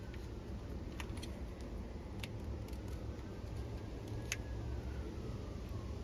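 A few sharp, faint clicks of a plastic wiring-harness connector being handled and probed with a pick, over a steady low rumble.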